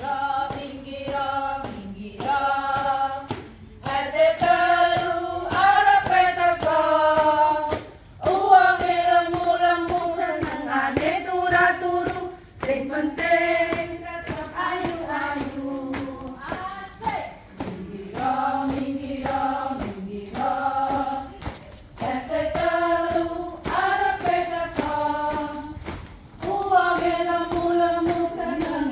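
A group of women singing a marching song together in unison, in phrases of a few seconds, with sharp taps and claps among the singing.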